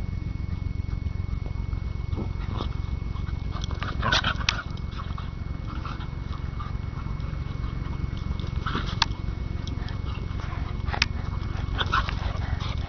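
Two dogs playing roughly, with a few short dog noises, the loudest about four seconds in, over a steady low rumble and a few sharp clicks.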